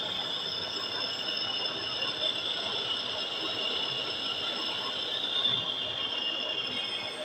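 Metal lathe cutting an iron part, the tool cutting with a steady high-pitched squeal over the machine's running noise.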